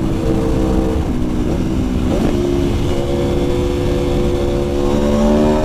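Aprilia Tuono V4 Factory's V4 engine pulling on the road. Its pitch climbs gradually through the second half as the bike accelerates, over a low rush of wind noise.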